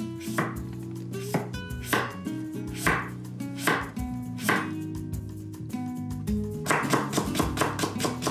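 Kitchen knife cutting through a raw carrot onto a wooden cutting board: separate crisp cuts at first, then a quicker run of chops near the end as the slices are cut into thin strips.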